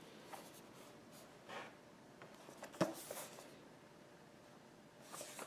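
Hands handling and turning a cardboard product box: faint rustling and scraping, with one sharp tap about three seconds in.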